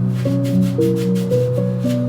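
Background music: calm held notes over a steady bass line, the melody stepping to a new note every half second or so, with several short soft hiss-like strokes over it.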